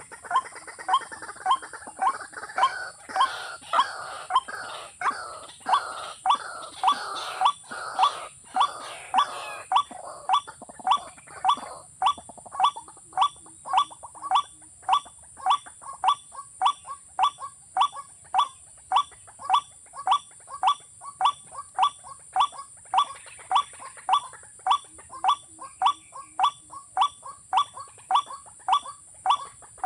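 Watercock calling over and over, a short note repeated at an even pace of a little under two a second. A steady high whine runs underneath.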